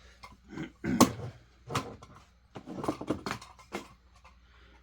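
Handling noise from a chainsaw and tools being moved: five or so short knocks and clatters, the sharpest about a second in, the rest scattered through the following few seconds.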